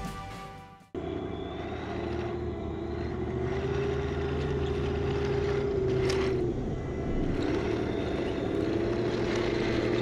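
Heng Long 1/16-scale M41A3 Bulldog RC tank driving, its electric drive motors and gearboxes whining steadily over a low hum, the whine rising and dipping as it changes speed.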